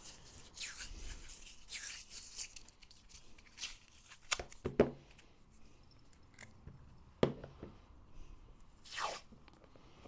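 Masking tape being pulled off the roll and torn into strips, with short swishes and a few sharp clicks as the tape roll and a small metal axle arm are handled on a cutting mat.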